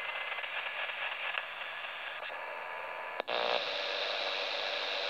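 TEN-TEC SP-325 shortwave receiver hissing with band noise from its speaker while it is tuned in LSB. About three seconds in there is a sharp click as it switches to AM, and the hiss turns brighter and a little louder as the wider AM filter comes in.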